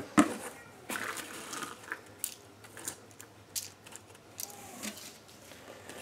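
Hands handling plastic-wrapped fan parts in styrofoam packing: scattered light clicks and crinkling.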